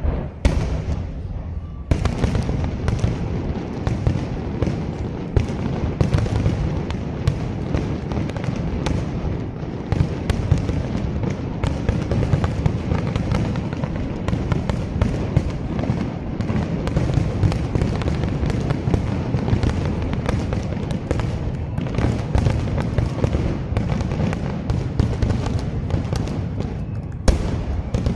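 Aerial fireworks shells going off in a dense, rapid barrage of booms and crackling, the closing salvo of the show. It starts with a few separate bangs, turns into a continuous run of bursts about two seconds in, and has one sharper bang near the end.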